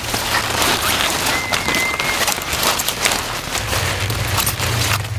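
Large broccoli leaves and stems rustling and crackling as they are handled and pulled during picking: a dense run of crisp crackles and clicks.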